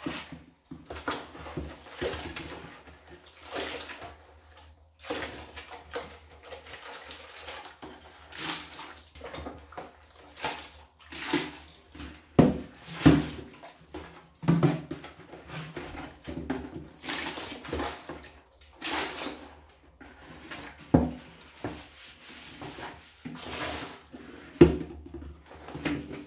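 Gloved hands scrubbing and sloshing soapy water in plastic garbage cans in a bathtub. Irregular swishing and splashing runs throughout, with a few sharp knocks as the plastic cans are handled against each other and the tub.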